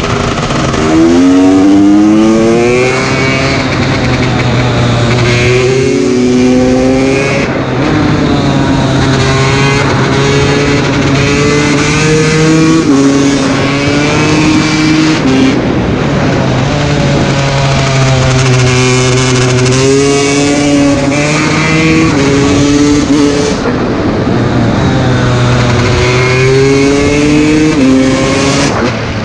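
KTM two-stroke motorcycle engine under way, revving up and shifting through the gears: its pitch climbs and drops back at each shift, many times over, with steadier stretches at speed in between.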